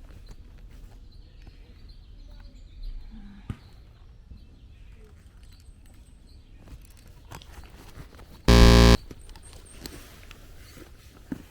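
Low background rumble with faint handling knocks and ticks, broken about eight and a half seconds in by one loud, half-second buzzing tone that cuts off suddenly.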